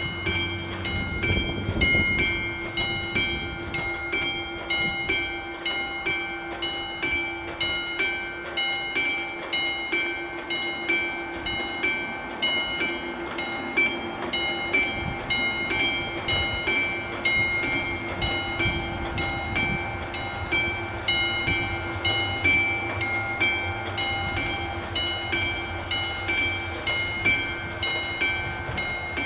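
Level-crossing warning bell of the classic type ringing steadily in quick, even strokes, each strike giving a bright metallic ring. It is the crossing's warning that a train is approaching.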